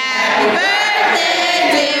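A group of voices chanting and singing together, loud and continuous.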